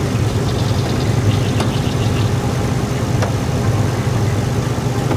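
Car engine idling steadily, a continuous low hum, with a few faint light ticks in the first two seconds.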